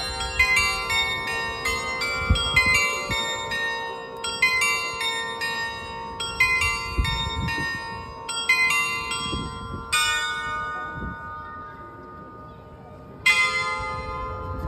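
Carillon of tuned bells on the gable of Hamelin's Hochzeitshaus playing a melody in quick strikes, each note ringing on over the next. The tune stops about ten seconds in and the bells ring out, then a loud chord of several bells struck together comes about a second and a half before the end.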